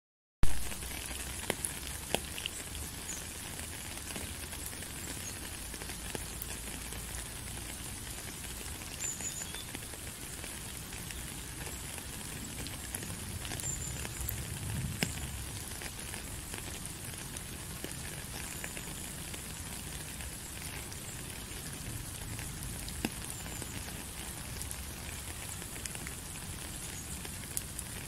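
Steady rain falling on a puddle and wet gravel, an even hiss of many drops with a few louder single drops standing out now and then.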